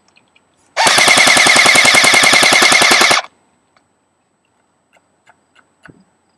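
Airsoft electric gun (AEG) with its stock G&G motor firing one full-auto burst of about two and a half seconds, at roughly 13 rounds a second, then stopping abruptly. A few faint clicks follow.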